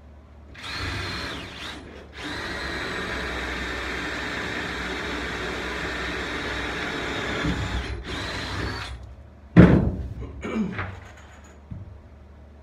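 Cordless drill running into a timber batten in three goes: a short run, a long steady run of about six seconds, then a brief one. A loud thump follows about a second later, the loudest sound here.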